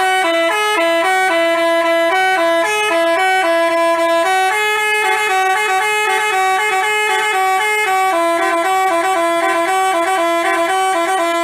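Telolet Basuri multi-tone bus horn playing a tune in a quick run of clear, stepping notes.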